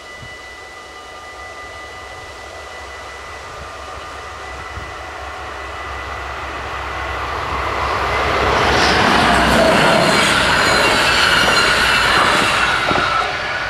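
Level crossing bells ringing steadily while a DDAR double-deck electric train passes: its rumble and wheel noise swell from about six seconds in, are loudest from about eight and a half to twelve and a half seconds, then fall away near the end.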